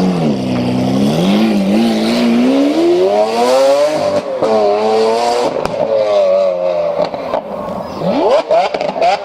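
Lamborghini engine accelerating hard. The pitch climbs steadily and drops sharply at upshifts about four seconds in and again a second and a half later, then rises quickly once more near the end.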